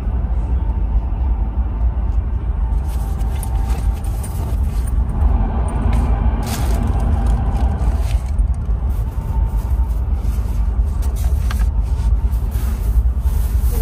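Steady low rumble of a CRH2E high-speed train running, heard inside the sleeper berth, with intermittent rustling of the pillow and bedding being handled.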